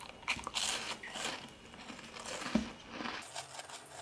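Crunching and chewing of a small sugar-free biscuit, a run of irregular crisp crackles with one louder soft thump about two and a half seconds in.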